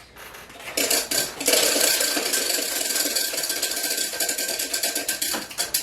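A spinning selection wheel clicking rapidly as it turns. The clicks start about a second in and stop near the end as the wheel comes to rest.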